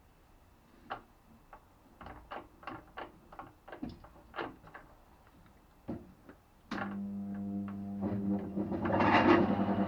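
Scattered clicks and knocks of metal tools and parts being handled at a metal lathe. About seven seconds in, the lathe's electric motor starts and runs with a steady hum, growing louder near the end.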